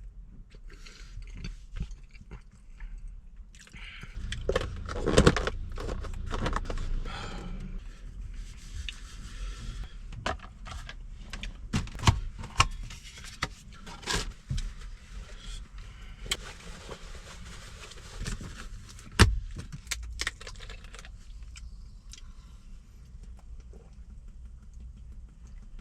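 Eating utensils and plastic takeout containers being handled: scattered clinks, clicks and scrapes, with the sharpest hits about five, twelve and nineteen seconds in.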